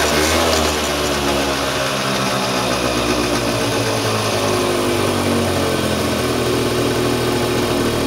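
Small microcar engine running. Its pitch eases down over the first few seconds, then it runs steadily at idle.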